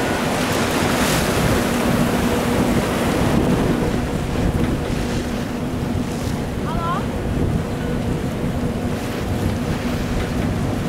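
Wind buffeting the microphone over the steady drone of a boat's engine and the wash of a choppy sea. A seabird calls briefly about seven seconds in.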